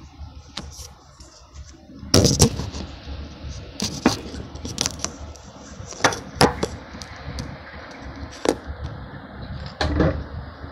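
Handling noise from a phone being moved and set up: a string of irregular knocks, bumps and rubbing against a low rumble.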